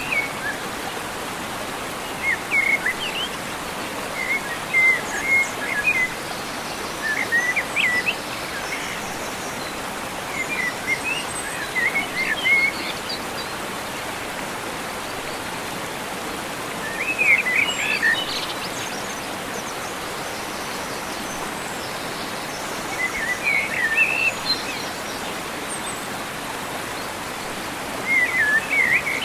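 A small bird singing short, quick chirping phrases, repeated every few seconds, over a steady rushing noise like running water.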